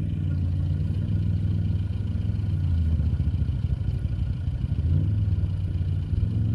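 Off-road vehicle engine running with a steady low drone that dips briefly twice.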